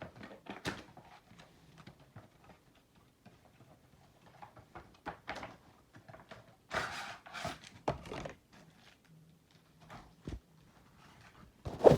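Cardboard box packaging being handled and opened: scattered taps and scrapes, a longer rustling scrape about seven seconds in, and a sharp knock near the end.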